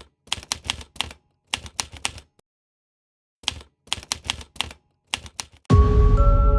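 Typewriter keys clacking in short runs of three to six strokes, with dead silence between the runs. About five and a half seconds in, music starts with a deep, loud boom and held tones.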